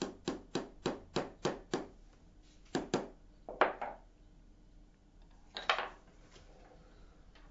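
Small hammer tapping a punch to drive a steel pin home through the flange of a metal detector's cam-lock mechanism. A quick run of sharp taps comes about three a second, then a few spaced, harder blows, the loudest a little past the middle, with a last tap later on.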